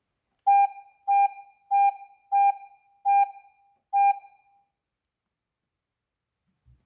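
G90B Plus alarm panel beeping six times, each a short, single-pitched beep that rings off briefly, spaced a little unevenly over about three and a half seconds.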